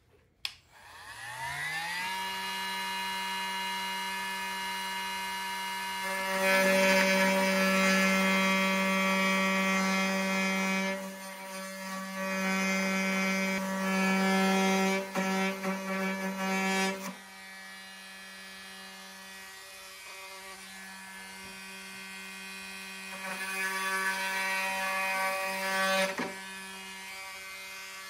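Milwaukee M18 cordless oscillating multi-tool cutting into an MDF wasteboard. The motor winds up to a steady buzz in the first two seconds. It grows louder and rougher in two long stretches while the blade bites, then is switched off just before the end.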